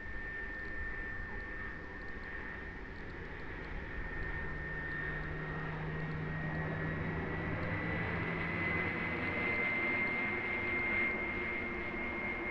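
ZOHD Delta Strike's 50mm electric ducted fan running in flight: a steady whine that slowly rises in pitch, over a rush of air.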